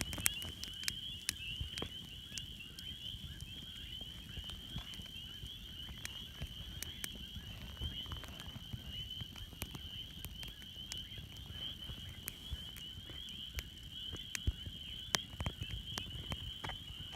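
Campfire crackling, with irregular sharp pops and snaps over a low rumble of the burning wood. A steady high-pitched chorus of night creatures runs underneath.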